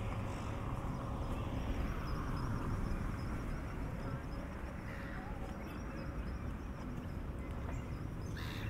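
Outdoor ambience during a walk: a steady low rumble with footsteps, and one sharp click near the end.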